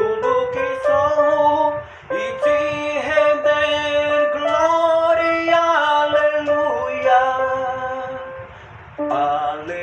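A slow hymn sung in Portuguese, with a man singing long held notes over a Casio electronic keyboard. There are short breaks between phrases, about two seconds in and near the end.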